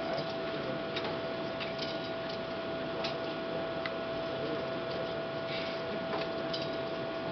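Old-film soundtrack noise: a steady hiss under a constant hum tone, with scattered irregular clicks and crackles.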